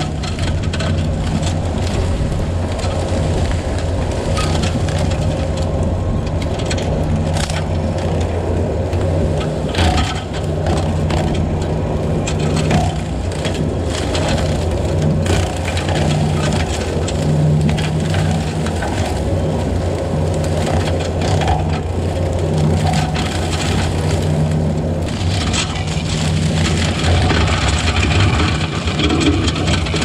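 Bobcat T650 compact track loader running steadily under load with a Blue Diamond Severe Duty brush cutter, brush and saplings cracking and snapping as they are shredded, with sharp cracks scattered all through.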